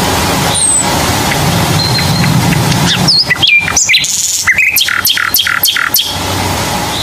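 A bird chirping over a steady background hum, ending in a quick run of about five repeated notes.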